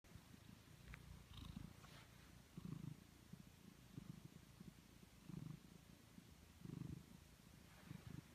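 Domestic ginger tabby cat purring close to the microphone: a low, faint rumble that swells and fades with each breath, about six times.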